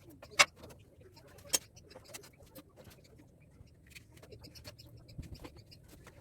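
Hand-tool work on an air-conditioner unit being stripped for scrap: scattered light clicks and taps on metal and plastic, with two sharp knocks about half a second and a second and a half in.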